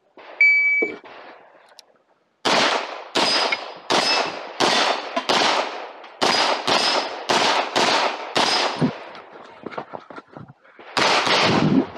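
A shot timer's short electronic start beep, then a fast string of pistol shots, about two a second, fired during an IPSC stage. The shots break off for about two seconds, with only faint knocks, and resume near the end.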